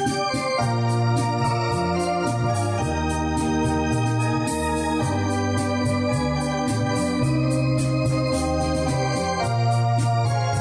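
Two-manual Yamaha home console organ playing a song: a melody over held chords and a bass line that moves every second or so, with a steady ticking beat.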